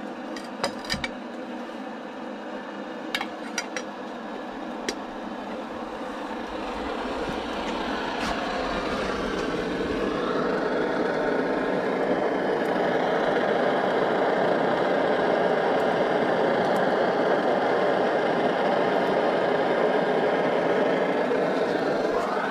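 A few light clicks of metal cookware being handled, then a liquid-fuel camping stove burner building to a steady rushing hiss about a third of the way in and burning at full flame.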